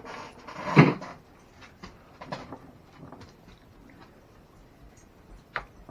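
Parts and tools handled during disassembly of an RC truck: one loud knock about a second in, then a few scattered light clicks and taps.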